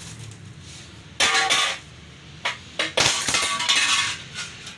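A 'breakable' plastic windshield cracking and crunching under a person's weight as he stands on it. There is a sudden burst of cracking about a second in and a longer run of crackling around three seconds in.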